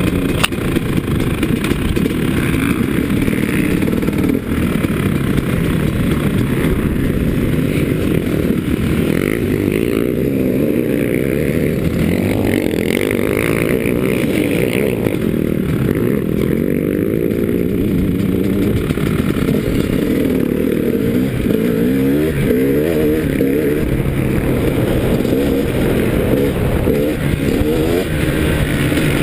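2011 KTM 300 EXC two-stroke single-cylinder engine being ridden hard on a dirt track, its revs rising and falling again and again with throttle and gear changes.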